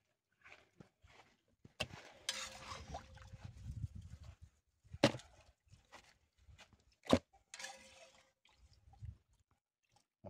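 Boiled crayfish being lifted by hand from the pot and dropped into a plastic tub. Shells rustle and clatter, with three sharp knocks on the plastic; the two loudest come about five and seven seconds in.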